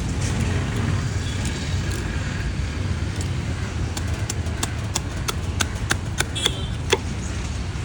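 A knife chopping through fish on a cutting board: about ten sharp knocks in a row at roughly three a second, starting about halfway through, over a steady low rumble of traffic.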